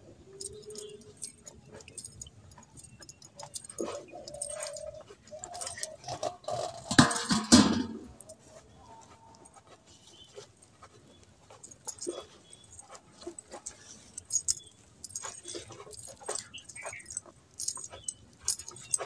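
Hand-milking a cow: a run of short, sharp clicks and jingles as the milker's bangles clink and milk squirts from the teats. There is a louder, longer noise about seven seconds in.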